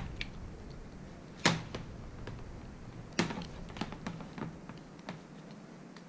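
Coiled insulated electrical wire being unwound and pulled off a screwdriver shaft: scattered light clicks and rattles, with two sharper knocks about a second and a half in and again about three seconds in as wire and tool hit the metal bench.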